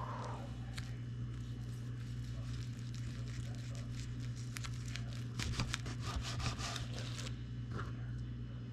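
Sharp kitchen knife sawing through a sushi roll, the nori seaweed wrapper crackling in short crisp ticks that are thickest between about five and seven seconds in. A steady low hum runs underneath.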